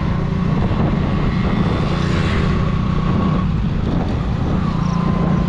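Hero Splendor's 100 cc single-cylinder four-stroke engine running steadily while riding at road speed, heard from the rider's seat with wind rushing over the microphone.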